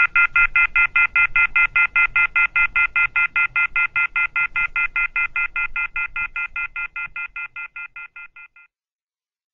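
Telephone off-hook warning tone: a rapid, shrill electronic beeping of several tones at once, about five beeps a second, fading away shortly before the end.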